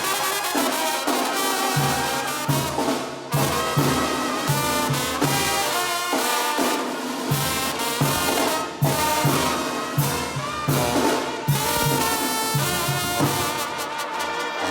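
Mexican banda brass band playing live: trumpets and trombones carry the melody over drums and a steady low bass pulse on the beat.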